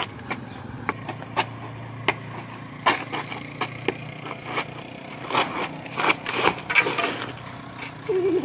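A stick tapping and scraping on concrete pavement: irregular knocks with scraping between them, coming thicker a little past the middle.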